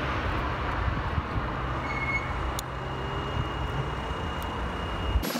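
Road traffic on a city street: a steady low rumble of cars driving past, which cuts off suddenly near the end.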